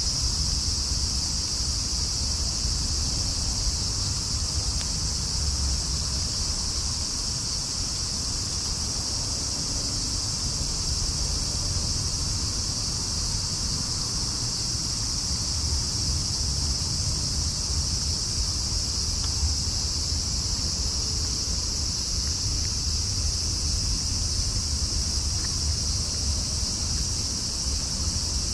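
Steady, high-pitched chorus of night-singing crickets and other insects, unbroken throughout, over a low rumble.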